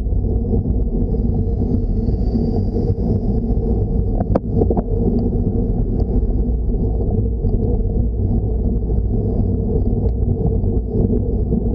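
Steady low rumble of wind and road vibration on a bike-mounted action camera's microphone during a slow climb, with a couple of sharp clicks about four seconds in.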